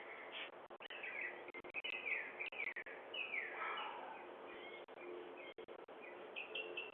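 Small birds chirping outdoors: a series of quick, downward-sliding chirps, with a faster run of short chirps near the end, over a faint steady hum. Heard through a Ring video doorbell's microphone.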